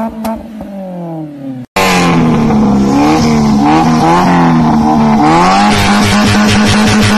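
Maruti Suzuki Zen engine through an aftermarket exhaust. The revs fall away, then after a brief break a louder car is revved up and down repeatedly.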